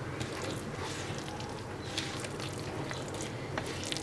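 Hand kneading wet kimchi paste of chili flakes, shredded vegetables and sticky rice-flour water in a plastic bowl: soft, irregular wet squelches and squishes.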